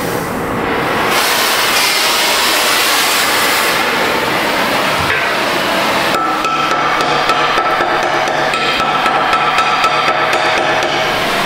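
Cutting torch hissing as it cuts through a rusted exhaust pipe. From about halfway in, a steady whistle joins the hiss, along with rapid crackling ticks.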